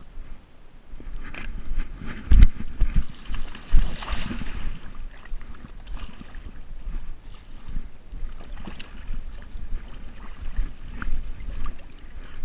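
A dog wading and splashing in shallow lake water, with irregular sloshing and rubbing from the camera strapped to its head. There is a sharp loud knock about two seconds in, then a rush of splashing noise.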